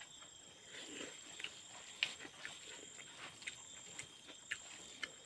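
A man chewing and lip-smacking as he eats rice and noodles by hand: a run of short, irregular wet smacks, two or three a second.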